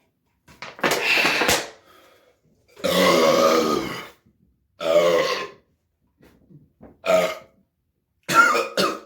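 A man belching loudly, five long burps of up to a second or more each, with a few small ones between them, brought up by a bottle of carbonated Sprite he has just chugged.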